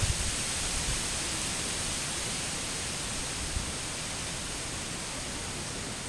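Steady, even rushing of a distant waterfall.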